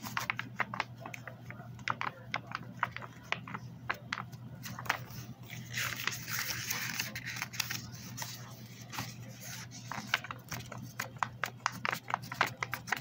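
Paper book pages being handled, turned and flipped back and forth: many quick, irregular paper slaps and flicks, with a longer rustle of paper about six seconds in.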